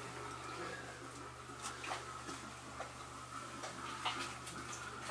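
Quiet background: a steady low hum with a few faint ticks and light knocks scattered through it.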